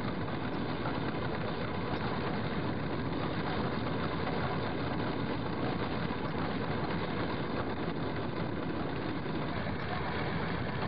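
Boat engine idling steadily, a low even rumble.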